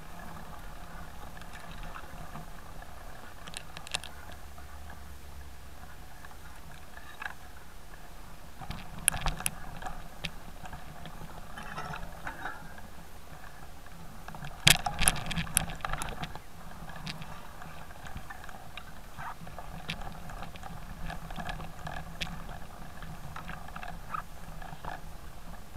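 Mountain bike rolling over a rough, rutted dirt singletrack: steady rattle and tyre noise, with sharp knocks from bumps about nine seconds in and a louder cluster around fifteen seconds.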